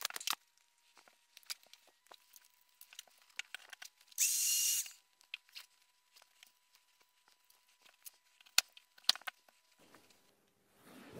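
Hand tools and thick orange high-voltage cable being handled on a workbench: scattered clicks and knocks, with one loud hissy burst lasting under a second about four seconds in and a couple of sharp snaps near the end.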